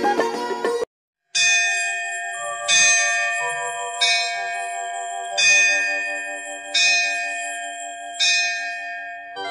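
Plucked-string music cuts off about a second in. After a short silence, a bell is struck six times, about once every second and a half, each strike ringing on with several steady tones into the next.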